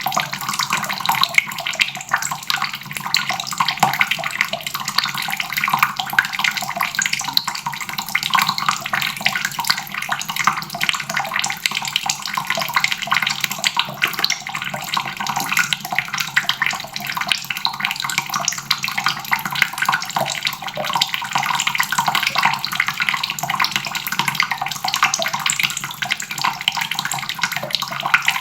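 Water running steadily from a faucet, splashing into a basin with an even, unbroken hiss.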